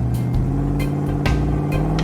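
Vehicle engine running with a steady drone whose pitch rises slightly, under background music with a steady beat.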